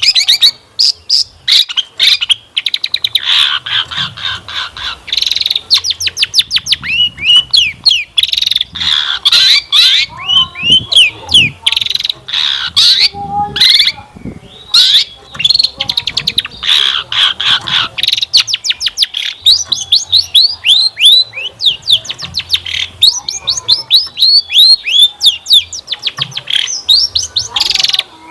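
Long-tailed shrike (cendet) singing a loud, fast and varied song packed with mimicked phrases of other birds: quick runs of chirps and down-slurred notes with only brief pauses.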